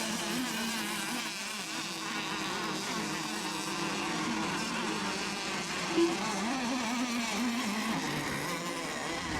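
Several radio-controlled racing boats' small engines buzzing together at high revs, their pitch wavering up and down as they run the course. A brief, louder tone stands out about six seconds in.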